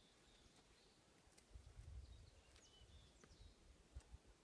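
Near silence, with small birds chirping faintly now and then. There is a brief low rumble about a second and a half in, and a few faint clicks.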